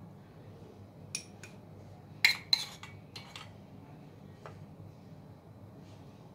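A metal spoon clinking and tapping against glass dessert cups and a pan as thick custard is scooped and spread. There are a few light taps, with two sharper clinks close together a little past two seconds in.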